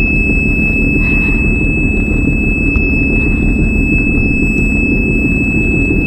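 Personal watercraft's warning buzzer sounding one continuous high-pitched tone over the low rumble of the idling engine: the high exhaust temperature alarm, which the rider blames on cooling water not flowing through the exhaust.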